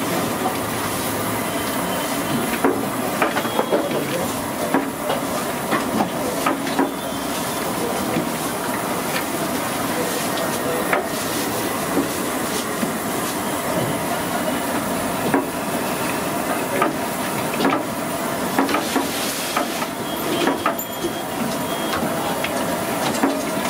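Steady sizzling hiss of hot frying oil at a street food stall, with scattered clicks and knocks.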